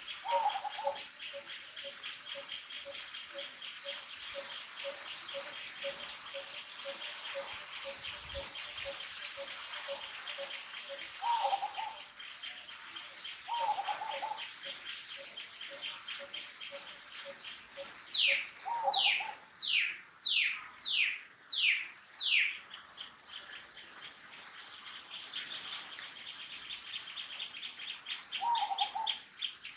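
Birds calling over a steady rapid high trill. A short low note repeats about twice a second for the first two-thirds, with a few brief mid-pitched calls. A little past halfway comes a run of seven quick falling whistles, the loudest sound.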